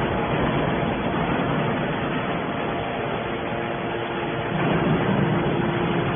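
Hydraulic scrap iron baler running: a steady mechanical noise with a faint hum in it, swelling slightly about five seconds in.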